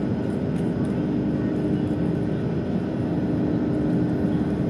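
Steady drone of a passenger airplane in flight, heard from inside the cabin: an even rush of engine and air noise with a constant low hum.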